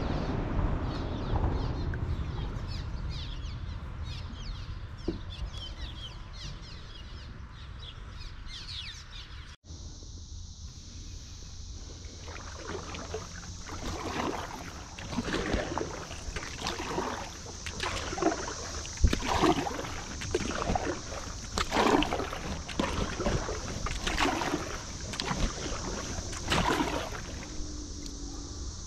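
Canoe or kayak paddle strokes in river water, a splashing stroke roughly every second over the second half. A steady low rumble fills the first few seconds.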